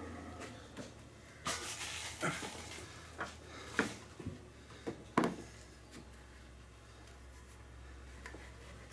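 Scattered short knocks and clunks of hoses and parts being handled around a truck's engine bay, the loudest about five seconds in, over a faint low hum.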